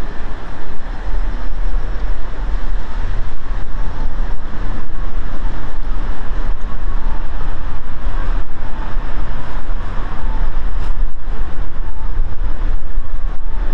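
Loud, steady low rumbling noise with no speech, its loudness flickering quickly.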